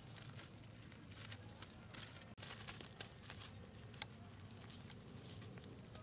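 Faint handling sounds of a hand picking small fish off wet, muddy ground: scattered light clicks and rustles over a low steady hum.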